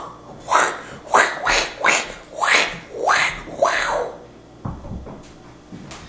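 A person making a quick run of about seven short, breathy, hissing vocal bursts with the mouth, about half a second apart, that stop about four seconds in.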